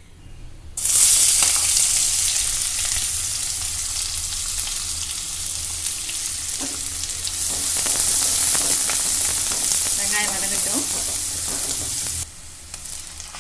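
Chopped onions frying in hot oil in a kadai, a steady sizzle with a wooden spatula stirring through it. The sizzle starts suddenly about a second in and cuts off shortly before the end.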